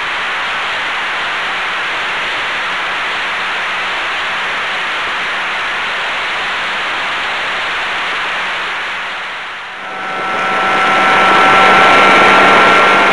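Outboard motor running flat out on a small speeding boat, under a steady rush of wind and water. A little under ten seconds in the sound dips briefly, then comes back louder, with the motor's high steady whine standing out clearly.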